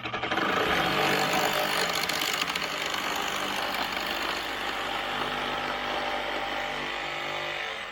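Power saw cutting through electrical conduit pipe, running steadily for about eight seconds and stopping abruptly near the end as the cut goes through.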